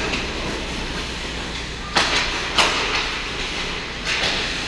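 Ice hockey play on a rink: a steady arena hum, with sharp scrapes and clacks of skates and sticks on the ice about two seconds in, again half a second later, and once more near the end.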